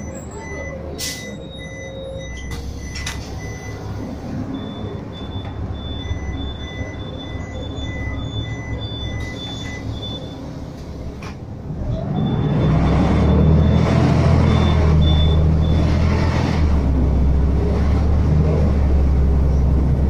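Engine of the vehicle being ridden in, heard from inside: it idles at a stop while short electronic beeps repeat, then grows louder about twelve seconds in as the vehicle pulls away and gathers speed.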